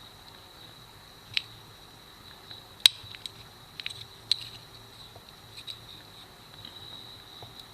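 A small blade levering a plastic handle scale off a Victorinox Swiss Army knife: a handful of sharp little clicks and snaps, the loudest about three seconds in.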